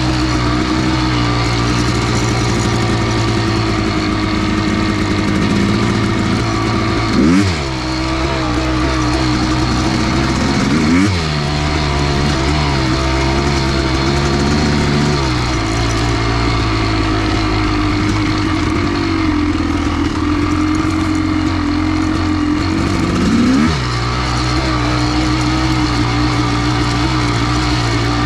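Kawasaki KX500's big-bore single-cylinder two-stroke engine running under way on a trail ride, with three quick swoops in engine pitch as the throttle is worked. The engine runs on a freshly rebuilt carburetor, which the rider says runs great.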